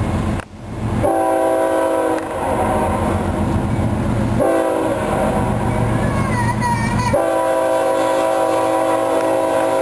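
Air horn of a CSX freight locomotive sounding one chord: a blast about a second in, then two long blasts from about four and a half seconds on, over the low rumble of the approaching train. It is the horn warning for a street grade crossing just ahead.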